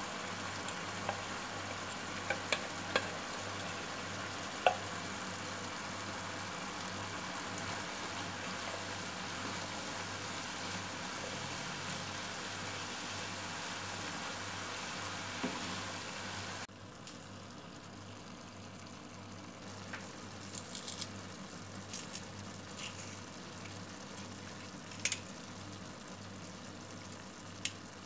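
Minced beef and diced onion sizzling in a nonstick frying pan, stirred with a wooden spatula, with scattered ticks and scrapes of the spatula against the pan. About two-thirds of the way through, the sizzle drops suddenly and goes on more quietly.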